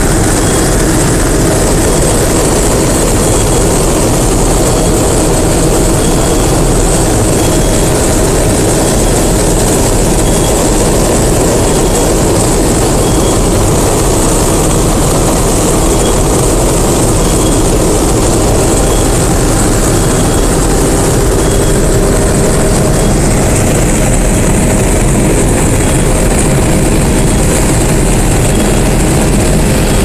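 D80 combine harvester running steadily under load while harvesting soybeans, heard from inside the cab: a loud, even drone of engine and threshing machinery.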